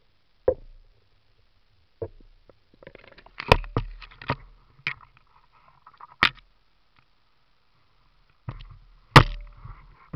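Irregular sharp knocks and clacks of a waterproof camera being handled and bumped as it is lifted out of the water, about ten in all, the loudest about three and a half, six and nine seconds in, with faint noise between some of them.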